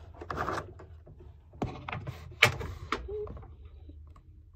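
A few sharp knocks and clicks of objects being handled on a desk, the loudest about two and a half seconds in, with a brief rustle near the start.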